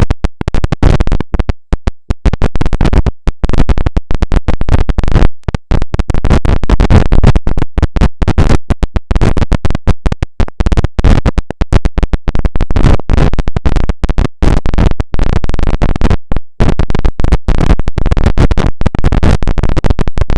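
A sneeze recording run through stacked vocoder effects, played very loud and chopped into rapid, stuttering bursts with brief gaps all through.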